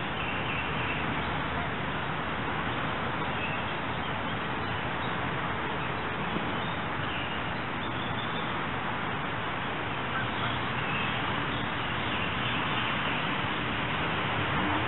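Steady rush of running creek water, with short bird calls now and then.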